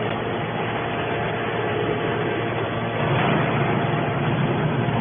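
Hydraulic scrap-metal baler running while it compresses stainless steel: a steady machine drone with humming tones under a dense noise, growing louder about three seconds in.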